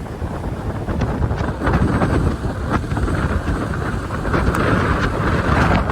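Strong storm wind gusting and buffeting the microphone in a steady, loud rush with a heavy low rumble.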